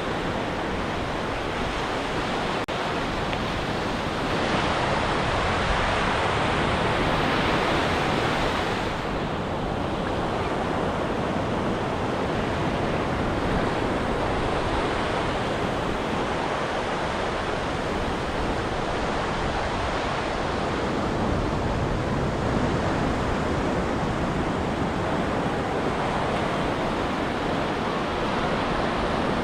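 Ocean surf on a beach: a steady rush of breaking waves that swells and eases, loudest from about four to nine seconds in.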